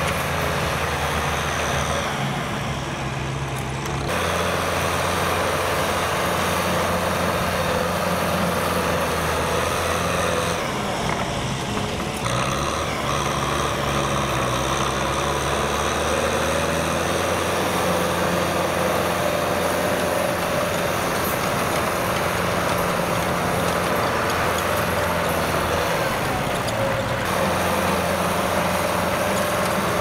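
Kubota M6040SU tractor's diesel engine running steadily under load while its rear rotary tiller churns dry soil, with a steady drone and a rushing, gritty noise from the tiller. The sound shifts abruptly several times.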